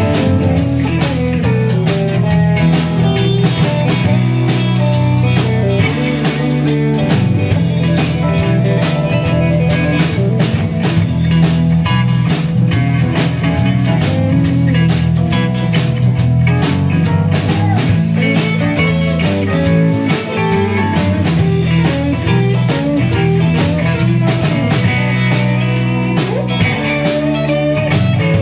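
Live rock band playing a bluesy number: electric guitars, electric bass and drum kit, with keyboards.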